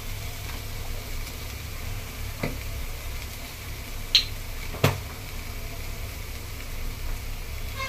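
Pan of shredded chicken left on the gas flame, sizzling faintly over a steady low hum, with three sharp clicks; the loudest, about four seconds in, is a short ringing clink.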